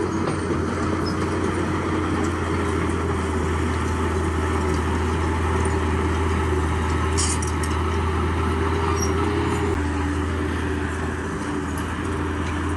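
Bulldozer's diesel engine running steadily under working load, its pitch dropping slightly about ten seconds in, with a brief metallic clatter about seven seconds in.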